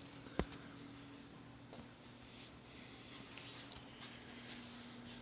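Quiet room tone with a faint steady hum, one sharp click about half a second in, and a few soft handling scuffs.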